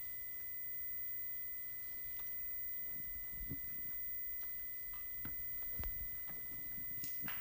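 A steady high-pitched pure tone over quiet auditorium room tone, with a few faint knocks; the tone cuts off at the very end.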